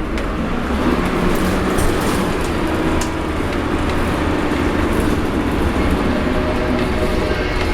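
Dennis Dart single-decker bus running with a deep rumble and whining tones from its retarder as it slows down.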